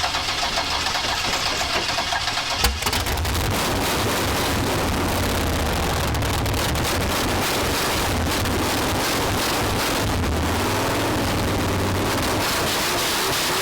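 Old car engine just started after sitting a long time: it runs rough and uneven for the first few seconds, then settles into a steady idle.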